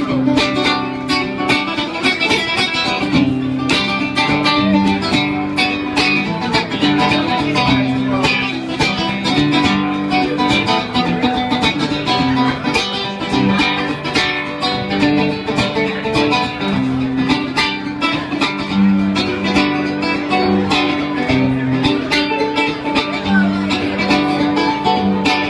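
Live music: a nylon-string acoustic guitar being picked over repeating low notes.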